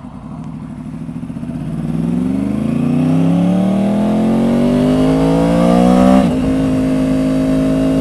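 Yamaha R1 motorcycle's crossplane inline-four engine through a Toce exhaust, accelerating: it grows louder over the first couple of seconds and its pitch climbs steadily. About six seconds in the pitch drops sharply, then holds a steady note.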